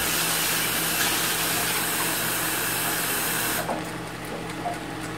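Kitchen tap running, a steady hiss of water that stops abruptly about three and a half seconds in, as water is drawn for the pot.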